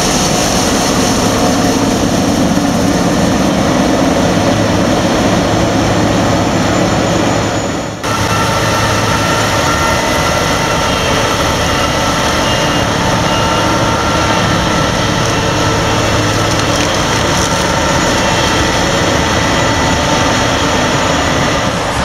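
Claas Lexion combine harvester running steadily while harvesting corn, a loud constant machine noise of engine and threshing works. It breaks off for an instant about eight seconds in and resumes.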